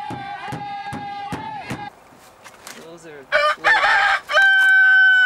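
A rooster crows loudly about three seconds in: a rough, broken start, then a long held note.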